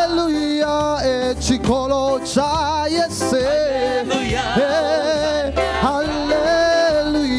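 Gospel worship music: a singer's voice sliding and wavering through a melody over band accompaniment with bass.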